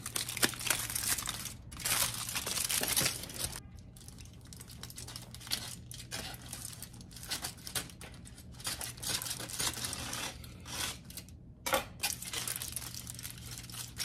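Aluminium foil crinkling and rustling in uneven bursts as hands unwrap and handle a sandwich wrapped in it.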